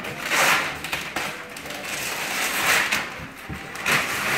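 Paper packaging crinkling and rustling in several short bursts.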